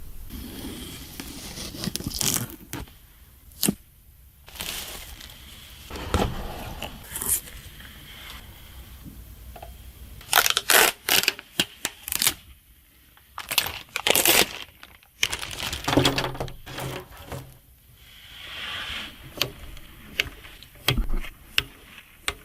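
Hands unpacking and handling a PC power supply and its packaging: plastic and cardboard crinkling and tearing, with a string of sharp clicks and knocks as parts are handled and set down.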